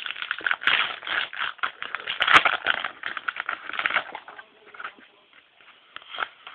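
Yu-Gi-Oh booster pack and its cards being handled: dense crinkling and clicking for about four seconds, then only a few fainter clicks.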